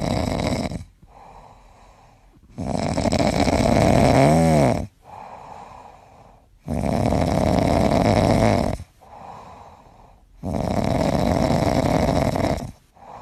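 A sleeping cat snoring, with a long loud snore about every four seconds and a softer breath between each.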